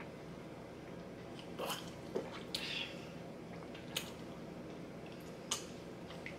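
Soft sipping and mouth sounds as two people drink soda from small plastic cups: a few scattered lip smacks and small clicks over a low room hum.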